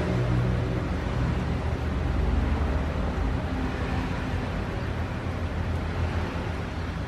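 Steady low rumble with a hiss over it, typical of a stove burner running under a pot of simmering broth.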